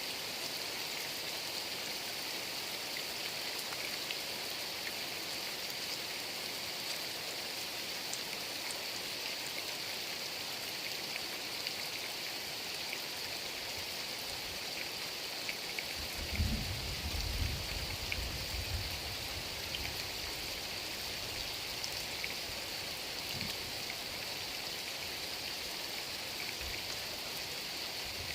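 Heavy rain pouring steadily, with a low rumble lasting a few seconds just past the middle.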